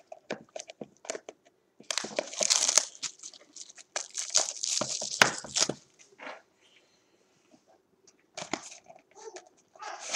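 Plastic shrink-wrap crinkling and tearing as a sealed trading-card hobby box is unwrapped and opened, in several bursts with small clicks and taps of cardboard handling between them.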